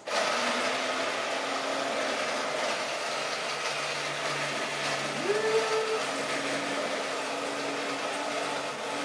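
Handheld immersion blender running steadily in a pot of hot tomato soup, pureeing it: a continuous motor whir, its tone rising briefly about five seconds in.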